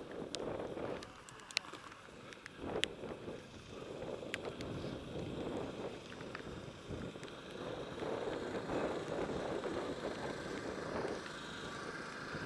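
Mountain bike being ridden over a grass and dirt trail: steady wind rush on the camera microphone and tyre rumble, with a few sharp clicks and rattles from the bike in the first half.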